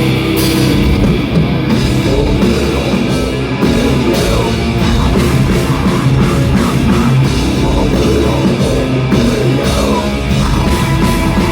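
Live rock band playing a loud song with drum kit and electric guitars.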